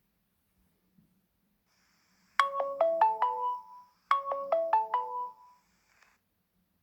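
Samsung Galaxy S3 ringtone: a quick phrase of about six struck, ringing notes, played twice in a row, starting about two and a half seconds in.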